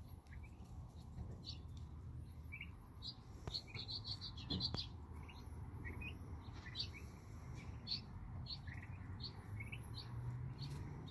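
Young turkey poults peeping: short high chirps scattered throughout, with a quick run of them about four seconds in.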